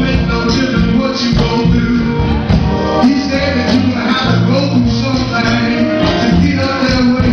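Gospel song: singing over a band with a steady bass line and a regular beat of high percussion ticks.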